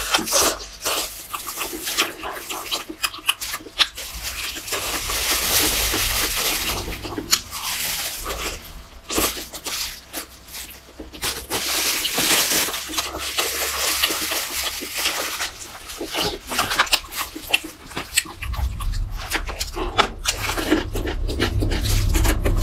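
Crispy fried chicken being bitten and chewed close to the microphone, the crust crunching and crackling in many sharp, irregular clicks.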